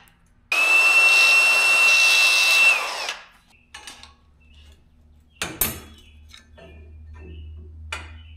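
Hand-held power tool running in one burst of about two seconds with a steady high whine, then spinning down. After it come a few sharp metallic knocks and clanks, the loudest about five seconds in, over a low hum.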